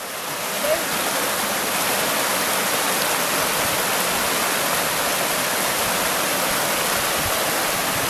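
Small waterfall cascading over rock into a natural pool: a steady, dense rush of falling water, building up over the first second and then holding even.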